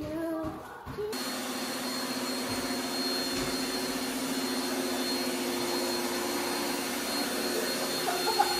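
A child's singing voice for about the first second, then a vacuum cleaner running steadily, with a low hum and a thin high whine.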